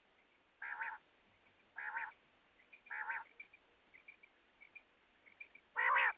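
Quail calling: three short calls about a second apart, a few faint chirps, then a longer, louder call near the end.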